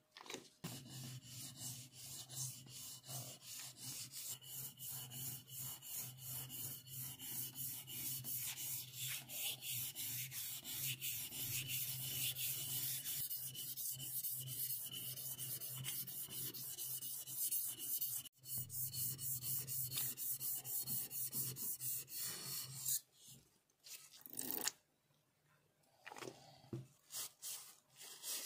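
Fast back-and-forth rubbing of an abrasive over a wet whetstone at about four strokes a second, flattening the stone's face. The strokes stop about 23 seconds in, leaving a few scattered scrapes.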